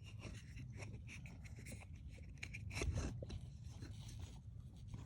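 Faint scraping and rustling with a few small clicks, from an accelerator pedal assembly being handled and fitted under the dash.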